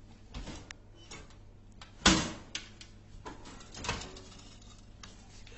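Knocks and scraping as a metal tape measure blade is pushed through the swinging flap of a vending machine's delivery tray. There is one sharp knock about two seconds in and smaller clatters before and after it.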